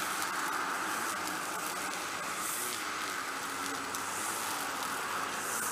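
String trimmer (weed eater) running steadily, with cars passing on the road, their tyre hiss swelling a few times.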